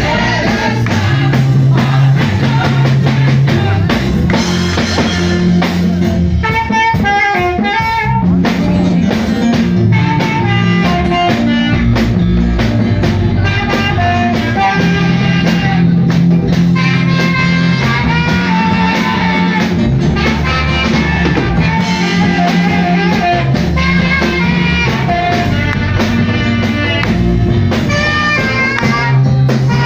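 Praise-and-worship band music: drum kit and bass guitar keep a steady groove under a melodic lead line.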